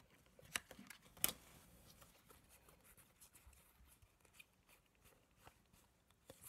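Faint handling of a stack of trading cards: light slides and ticks as the cards are thumbed through, with two sharper clicks about half a second and just over a second in.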